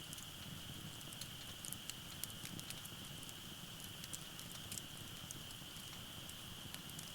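Firewood burning in a Uniflame wood-grill fire pit: scattered crackles and pops over a low rumble of flame, with a steady high-pitched drone behind it.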